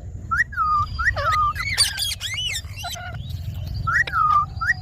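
Indian ringneck parakeet calling: a run of short squawks that rise and fall in pitch, several in quick succession about two seconds in, over a steady low rumble.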